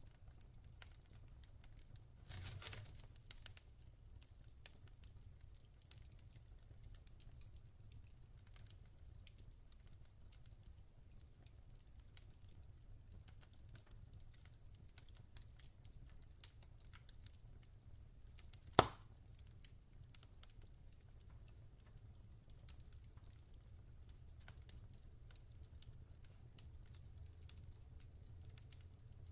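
Log fire crackling faintly with many small scattered pops over a steady low rumble; a brief burst of crackle a couple of seconds in, and one loud sharp pop about two-thirds of the way through.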